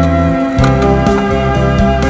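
Background music: an instrumental track with a bass line, held chords and a steady beat.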